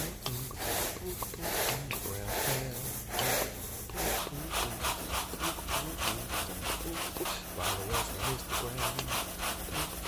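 Carpet grooming rake worked back and forth by hand through carpet pile, agitating a pre-sprayed cleaning agent into the fibres: a steady run of scratchy rubbing strokes, about two a second, quickening to about three a second some four seconds in.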